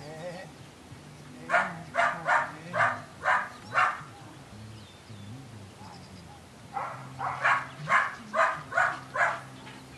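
Belgian Malinois puppy barking in two runs of short, sharp barks: about half a dozen over two seconds, then about eight more a few seconds later.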